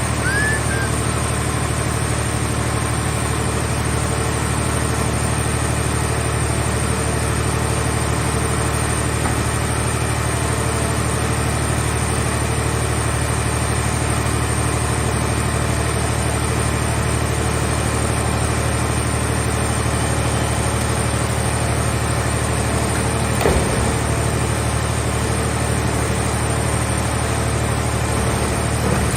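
Engine of a portable car-body baler running steadily at an even speed, with one brief knock a little past two-thirds of the way through.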